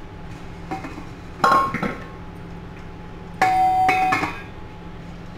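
Stainless steel colander knocking against the steel pot beneath it: two sharp ringing metal clanks about two seconds apart, with a lighter knock before them.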